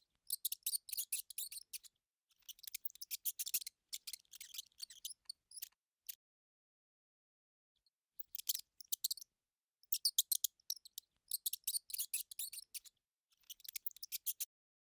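Mouse sound effect: runs of rapid, high-pitched scratchy clicks and chirps, each lasting one to two seconds, with a pause of about two seconds in the middle.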